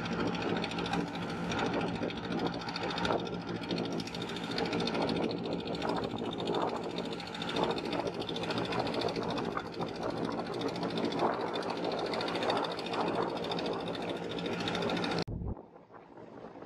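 Engine of a motorized wooden river boat running at a steady drone under way. It cuts off abruptly near the end, leaving fainter wind and water noise.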